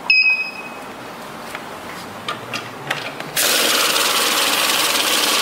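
Mechanical cash register sound effect: a single bell ding that rings out briefly, a few scattered key clicks, then a loud steady mechanical noise from a little past halfway.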